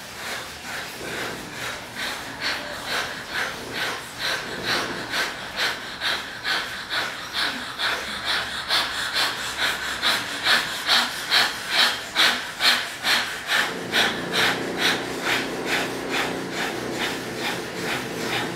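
A group breathing together in a fast shared rhythm, short forceful breaths about two a second, swelling to their loudest past the middle and then easing. In the last few seconds a low steady hum sounds under the breaths.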